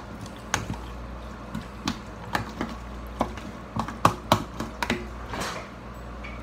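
Metal spoon stirring and mashing guacamole in a glass bowl: irregular clinks and taps of the spoon on the glass with soft squelches of the mash, and a longer scrape near the end.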